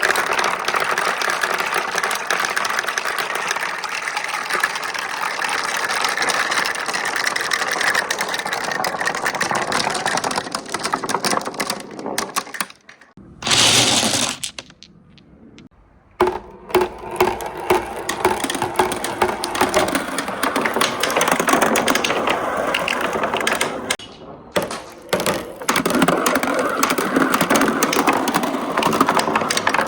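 Marbles rolling and clattering along a wooden marble run with right-angle track turns: a dense, continuous rattle of many small clicks. About 13 seconds in a short loud burst is followed by a near-quiet pause of about two seconds before the rattle resumes, and it dips briefly again about 24 seconds in.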